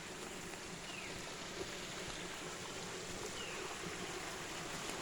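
Stream flowing, a steady rushing of water, with two faint short high chirps, one about a second in and one past three seconds.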